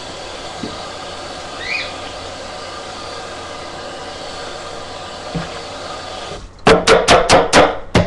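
A steady rushing noise cuts off about six seconds in. It is followed by a quick run of about seven loud, sharp knocks, roughly five a second.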